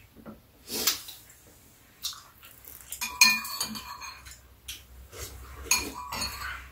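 Metal spoons clinking and scraping against ceramic bowls as two people eat, in scattered sharp taps with a few louder clinks.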